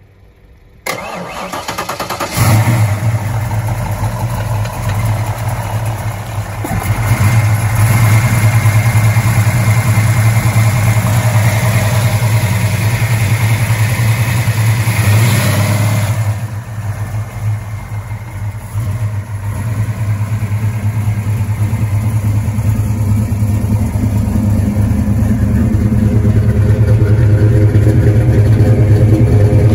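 A Foxbody Mustang's naturally aspirated Ford small-block V8 cranks over about a second in and catches about two seconds in. It runs at a raised speed, drops back to a lower idle about sixteen seconds in, then grows gradually louder near the end as it is heard closer to the tailpipes.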